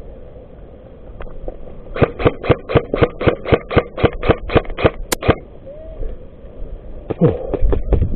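Airsoft gun firing a rapid string of about fourteen shots, roughly four a second, followed by a shorter burst of about five shots near the end.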